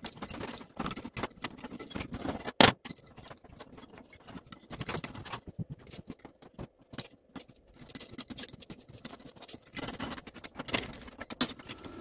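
Screwdriver scraping and picking caked carbon out of a diesel heater's steel burn chamber: irregular scratching and small metal clicks, with a sharp knock about two and a half seconds in and another near the end.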